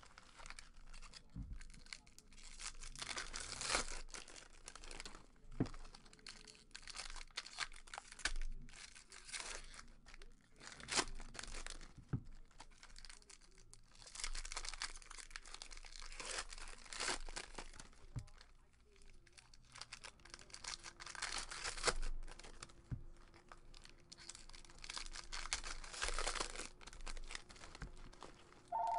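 Foil wrappers of Bowman Jumbo baseball card packs being torn open and crinkled as the cards are handled: repeated bursts of rustling with scattered sharp clicks.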